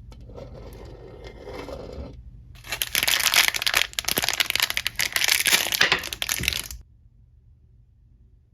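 Packaging being unwrapped by hand: a couple of seconds of soft rustling, then a louder stretch of crinkling and tearing that stops suddenly.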